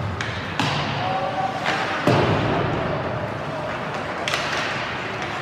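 Ice hockey play heard from the stands: four sharp knocks of puck and sticks against the boards, the loudest about two seconds in, over a steady murmur of spectator voices in the rink.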